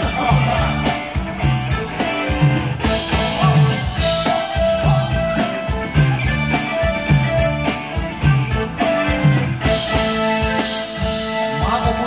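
A live band playing Thai ramwong dance music on electric guitars and drum kit, with a steady beat under the guitar melody.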